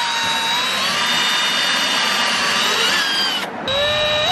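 Cordless drill motor whining at speed as it drills a hole in a plastic kayak hull. About three and a half seconds in the sound cuts off briefly, then the drill starts again and its whine rises in pitch as it spins up.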